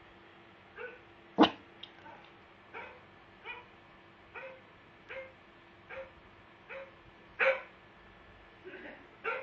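A dog barking over and over: about a dozen short barks at a steady, even pace, with two much louder barks about a second and a half in and near seven and a half seconds in.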